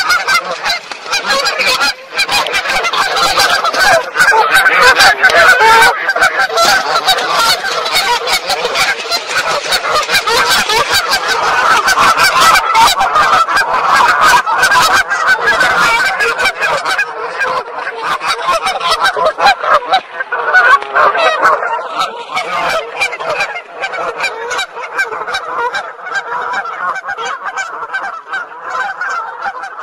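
A dense, continuous chorus of honking bird calls from a large flock, used as a 3D-audio demonstration of a sound moving in a circle around the listener's head.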